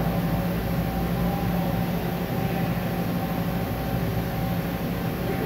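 Steady hum of running machine-shop machinery, with several constant tones that hold without change.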